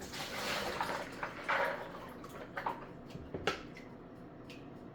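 Black-eyed peas being rinsed and shifted between kitchen containers: a brief wash of splashing water, then scattered clicks and knocks of the containers and peas.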